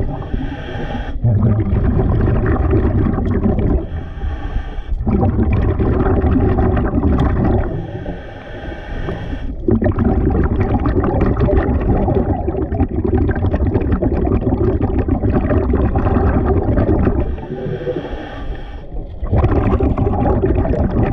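Scuba diver breathing through a regulator underwater. Four short hissing inhalations, each followed by a longer bubbling exhalation, the longest lasting several seconds in the middle.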